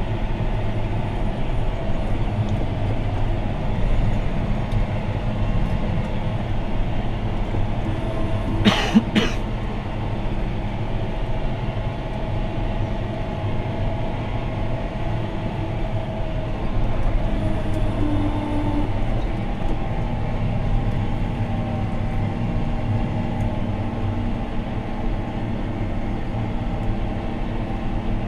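John Deere 6215R's six-cylinder diesel engine running steadily under ploughing load, heard from inside the cab. Two short sharp knocks come about nine seconds in.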